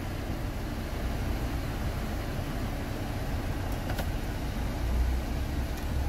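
Steady low hum of a 2014 Renault Samsung New SM5's engine idling, heard from inside the cabin, with the air conditioning running. The A/C has just been recharged with 500 g of refrigerant and is blowing cold.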